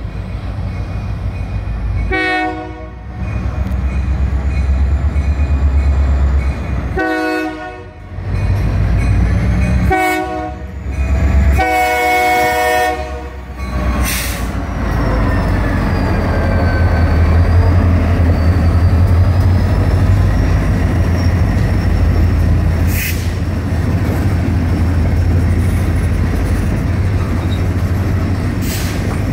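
A diesel locomotive's multi-chime air horn sounds four blasts for the crossing, three of about a second and a longer fourth. The locomotive's diesel engine follows, rumbling past, and then freight cars roll over the crossing with a thin wheel squeal and a few knocks.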